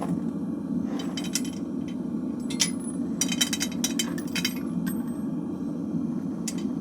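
Propane smelting furnace burner running steadily while brass shell casings are tipped into the crucible, clinking metal on metal in a string of sharp clinks.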